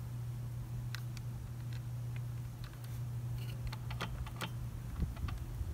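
Light metallic clicks and taps as a clutch-holding tool is fitted by hand into the teeth of a motorcycle clutch basket, several coming close together about four seconds in, over a steady low hum.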